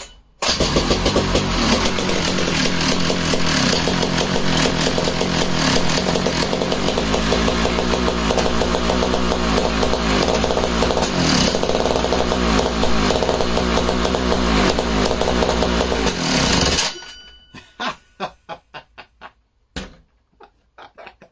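McCulloch 1-72 two-stroke chainsaw engine firing and running hard at wide-open throttle, popping and wheezing. Its old ignition coil is sparking strongly. About 17 s in it cuts out and dies with a string of irregular pops.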